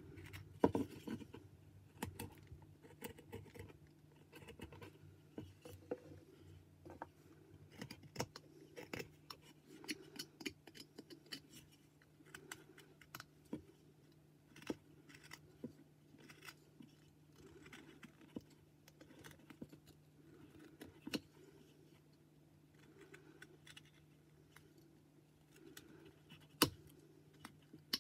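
Carving knife paring small cuts in white pine: irregular short snicks and scrapes of the blade in the wood, a few a second, with a sharper click about a second in and another near the end. A faint steady hum runs underneath.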